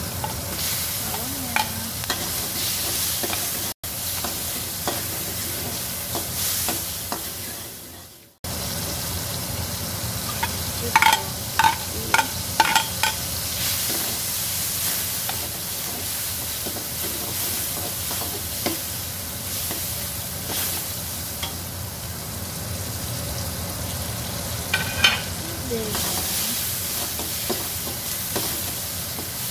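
Sliced onion, garlic and chillies sizzling in butter in a coated wok while a metal spatula stirs them. A few quick sharp clicks of the spatula against the wok come about midway and again near the end, and the sound briefly cuts out twice in the first third.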